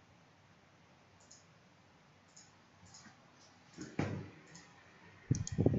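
Scattered light clicks of a computer mouse. A dull knock comes about four seconds in, and low thuds start near the end.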